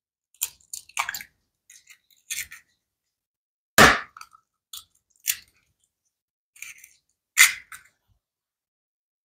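Two eggs being cracked against the edge of a bowl: a scatter of light taps and clicks, with two sharper cracks about three and a half seconds apart.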